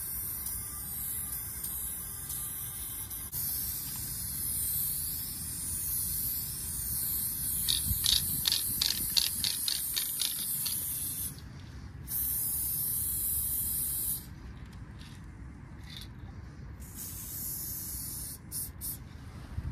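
Aerosol spray paint can hissing as paint goes onto the wall: a long spray for most of the first ten seconds, another about two seconds long past the middle, then short bursts near the end. Partway through, a run of clicks, about three a second, sounds over the spray.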